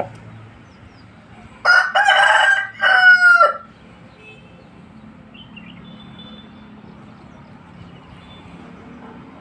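Aseel rooster crowing once, about two seconds in: a crow of about two seconds in two parts, the second ending on a falling note.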